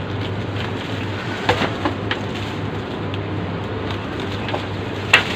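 Steady rain noise with a low, steady hum beneath it and a few brief knocks, the sharpest near the end.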